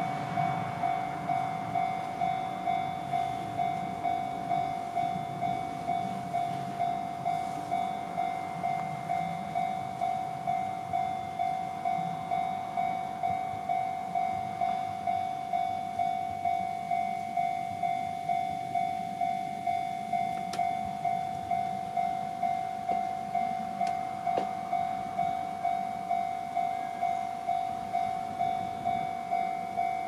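Japanese railway level-crossing warning bell ringing steadily, an electronic ding repeating a little more than once a second, signalling that a train is approaching and the crossing is closed.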